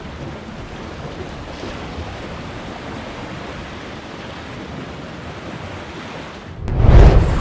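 Sea waves washing steadily against rocks. Near the end a sudden, much louder rush of wind buffeting the microphone and surf takes over.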